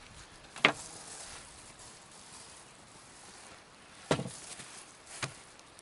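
Sharp clicks and taps of a plastic seasoning shaker being handled over a glass tabletop: the loudest about half a second in, two more around four and five seconds in, over a faint steady hiss.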